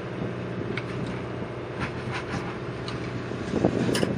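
Boat engine droning steadily, with a few light clicks and knocks over it.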